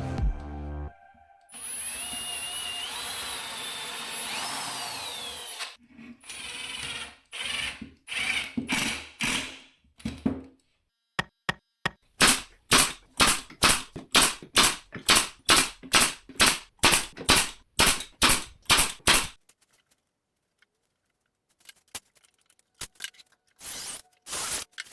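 Cordless drill/driver driving screws into wood. First a long run of about four seconds whose whine rises in pitch, then several shorter runs, then a long series of short trigger pulses at about two a second.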